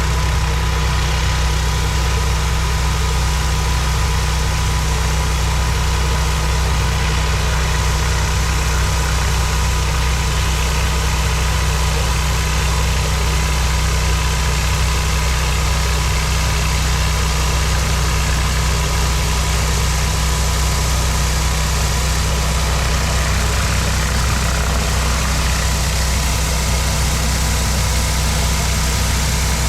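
Gas pressure washer engine running steadily under load, with the hiss of the water spray over it.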